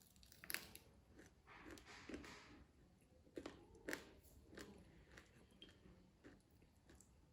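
A person chewing and biting food, with irregular crunches and clicks. The sharpest ones come about half a second in and near four seconds.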